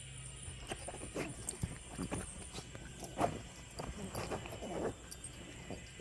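A Yorkshire terrier and a Havanese mouth-wrestling in play, giving irregular short snorts and huffs, most of them from three to five seconds in.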